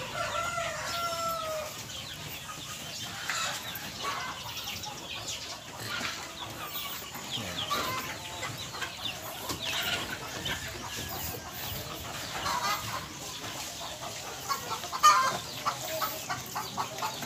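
A flock of chickens clucking and calling, with many short overlapping calls and one longer drawn-out call in the first couple of seconds. A louder, sharper burst of calls comes near the end.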